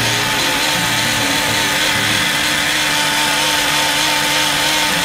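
Countertop electric blender running at a steady speed, its motor giving a steady whine and hum over the churning of a thick batter in the jar.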